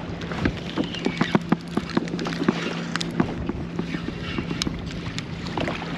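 Irregular clicks and knocks, about a dozen, as a spinning reel and rod are worked on a fishing kayak, over a steady low hum that stops about two-thirds of the way through.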